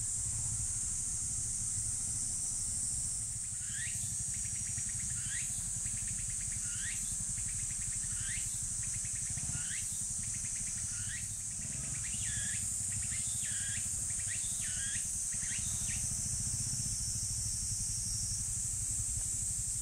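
Steady high-pitched insect chorus over a low steady rumble. From a few seconds in until about three-quarters of the way through, a second caller repeats a short rising note about once a second, a dozen or so times.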